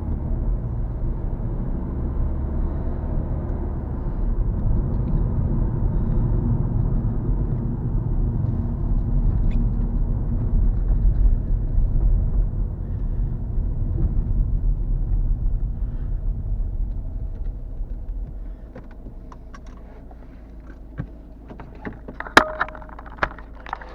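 Car engine and road rumble heard inside the cabin through an action camera's built-in microphone while driving, swelling in the middle and then quietening about three-quarters of the way through. A few sharp clicks and knocks follow near the end, one much louder than the rest.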